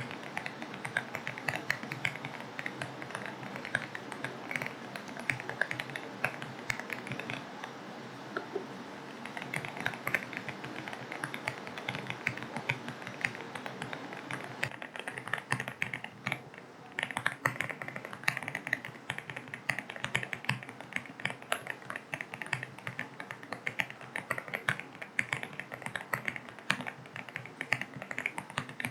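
Rapid, continuous typing on an AULA F75 mechanical keyboard with linear switches: a fast run of key clicks with one short pause past the middle, over a steady rain hiss.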